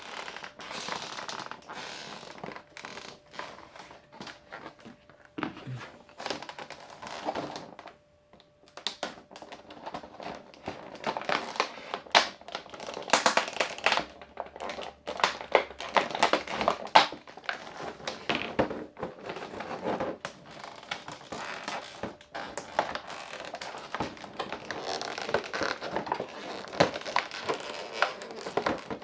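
Stiff plastic packaging being cut with scissors and worked by hand: irregular crinkling and crackling with many sharp clicks, with a brief pause about eight seconds in.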